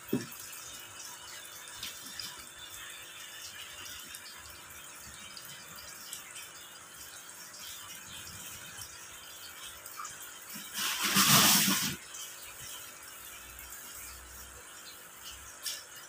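Steady water noise from aerated goldfish breeding tanks, with a short knock at the start as a plastic crate is set over a tank. A loud rushing noise lasting about a second comes roughly two-thirds of the way through.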